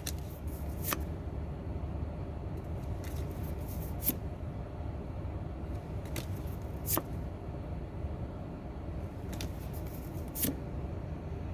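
Pokémon trading cards being handled and flipped through one at a time: soft sliding and rustling with a sharp card snap every few seconds, over a steady low hum.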